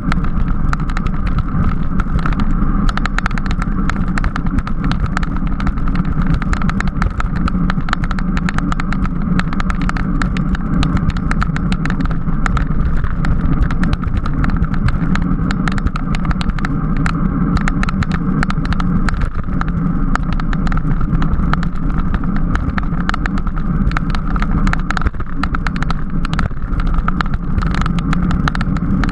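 Steady wind and road noise on a camera riding in a bicycle criterium race, with constant rattling clicks.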